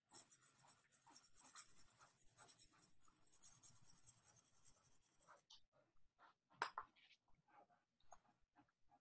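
Faint scratching of a soft drawing stick rubbed back and forth across paper while shading in a dark area. The strokes are dense and continuous for the first five seconds or so, then thin out into separate strokes, with one sharper tap about two-thirds of the way through.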